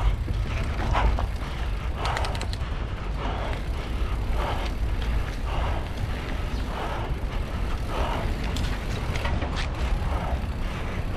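Nukeproof Scout 290 mountain bike riding over a rooty dirt trail: tyre noise and drivetrain rattle under heavy wind rumble on the microphone, with a soft swish about once a second and a few short clicks.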